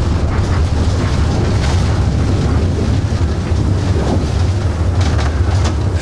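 Steady, loud low rumble of the Bloodhound SSC's engines from a simulated record-run video, played over loudspeakers in a hall.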